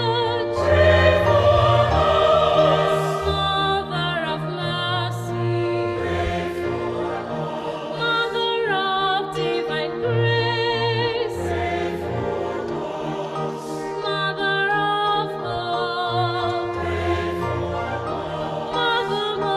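Classical choral music: voices singing with vibrato over sustained orchestral accompaniment and low held bass notes.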